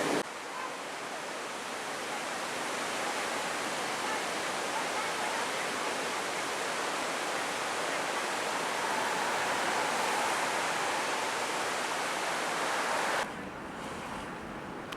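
Waterfall at heavy snowmelt flow rushing in a steady, even roar of falling water. It cuts off suddenly near the end, giving way to a quieter, lower rumble.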